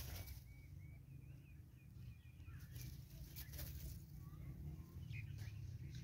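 Faint birdsong: a bird repeats short chirps for the first couple of seconds, with a few more chirps later, over a steady low rumble and a few brief noises.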